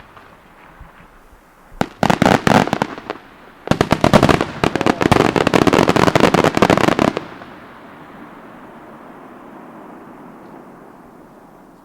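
Aerial fireworks bursting in rapid volleys: a short run of bangs about two seconds in, then a longer, dense run of bangs from about four to seven seconds, followed by a fading rumble of echoes.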